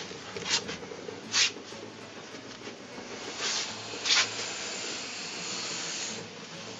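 Reticulated python hissing: four short, sharp hisses in the first four seconds or so, then a softer, longer hiss.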